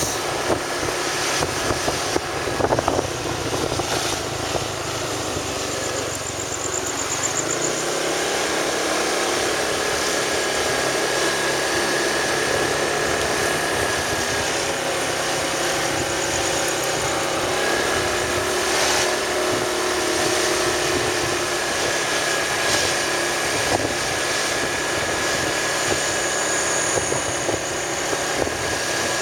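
Motor vehicle engine running steadily on the move, with a constant rush of road and wind noise and a few faint steady tones.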